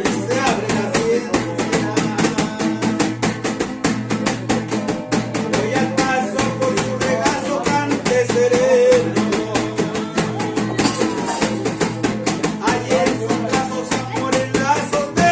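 Live acoustic music: a small guitar strummed in quick, driving strokes, a wooden box drum slapped by hand, and a man singing over them.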